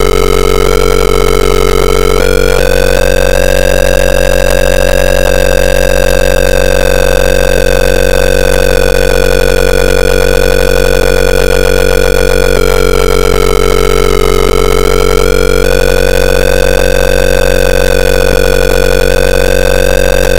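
Computer-generated velocity tone from Port Flow Analyzer software: a continuous buzzy electronic tone whose pitch follows the air velocity at an electronic pitot tube's tip probing a cylinder head intake port, higher pitch meaning higher velocity. The pitch steps up in the first few seconds, holds, dips twice in the second half as the probe finds slower air, then rises again.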